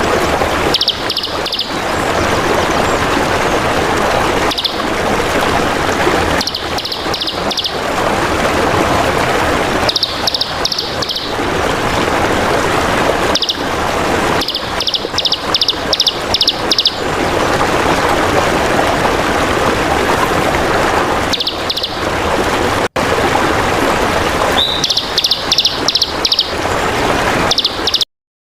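Steady trickling water with a small bird breaking in every few seconds with quick runs of high chirps, four to eight notes in a row. The sound cuts off abruptly near the end.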